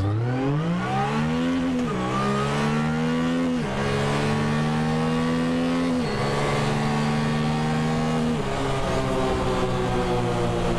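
Yamaha YXZ1000R's three-cylinder engine, fitted with an Alba Racing SBD kit, accelerating hard from inside the cab. The revs climb, then drop at four quick upshifts about two, four, six and eight seconds in, and hold fairly steady after the last one.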